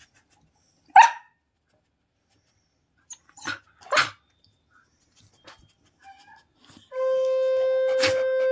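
Siberian husky puppy giving short, sharp barks: one about a second in and two more close together a few seconds later. Near the end a loud, steady horn-like tone starts and holds.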